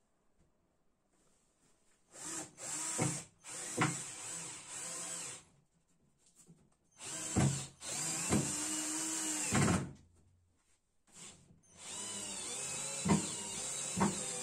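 Cordless drill running in three bursts into a wooden frame, its motor pitch rising and falling within each burst, with short pauses and a few knocks between.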